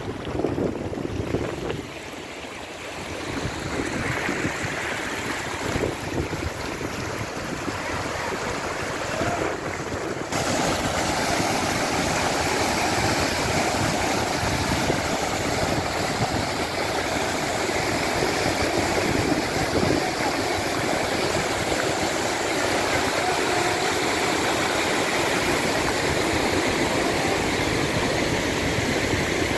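Water rushing and splashing: first water running over a shallow bank into a reservoir, with wind on the microphone. After an abrupt change about ten seconds in, a louder steady rush of several large pipes pouring water into a channel and churning below.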